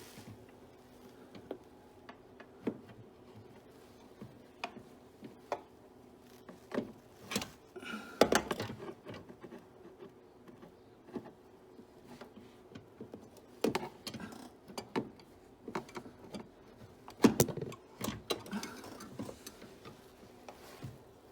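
Irregular metallic clicks and clunks of a door-spring compressor tool and door hinge being worked by hand while fitting the hinge spring, with a few louder knocks, over a faint steady hum.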